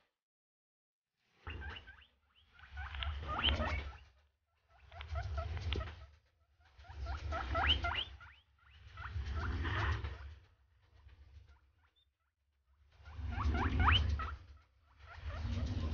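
Short, high rising chirps and squeaks from birds, many in a row, coming in spells of a second or two with quiet gaps between. A low rumble, like wind on the microphone, comes in with each spell.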